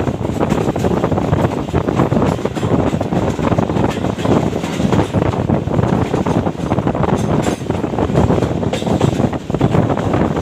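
Passenger train running along the line: a steady loud rumble with irregular clatter from the wheels and coaches.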